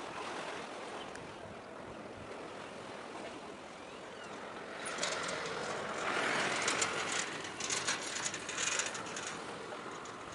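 Steady wind and surf noise at the shoreline. About halfway through, a few seconds of dense crackling clicks rise over it, then fade again.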